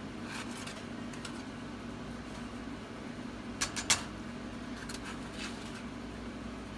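A few light clicks in quick succession a little past halfway, as a metal measuring spoon taps against the rim of a plastic tub while dry seasoning is shaken in, over a steady background hum.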